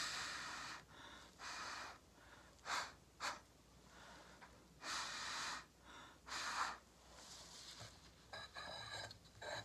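Short puffs of breath blown through a drinking straw onto wet acrylic pour paint, about seven of uneven length in a row, pushing the paint outward across a tile coaster.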